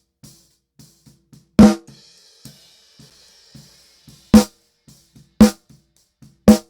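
Snare drum through its gated top microphone, soloed with the Sphere Eclipse C console's EQ switched off: four sharp snare hits with faint ticks between them.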